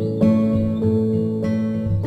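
Background music: a plucked guitar playing held notes.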